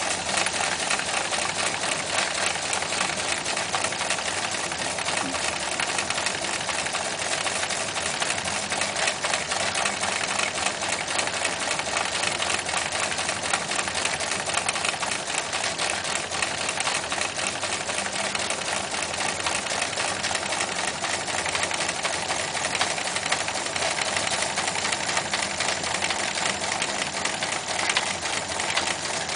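Gauge 1 live-steam model of an LMS Duchess locomotive, twin-cylinder and gas-fired, running on the spot: a steady, rapid stream of exhaust beats with steam hiss.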